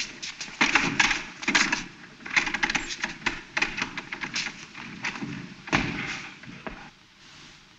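Wooden courtroom gate being rattled and banged: a quick, irregular run of knocks and clatters that dies away near the end.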